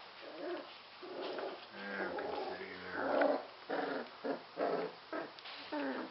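Four-week-old Airedale Terrier puppies play-fighting, giving a string of short puppy growls that come thicker and louder from about two seconds in.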